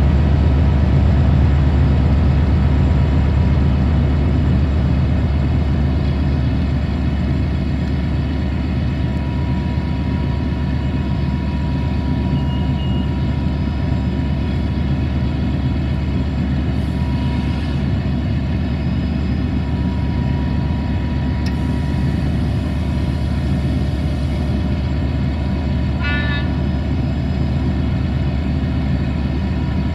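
Diesel locomotive engine running steadily at idle, a deep even rumble. About 26 seconds in there is a short high toot.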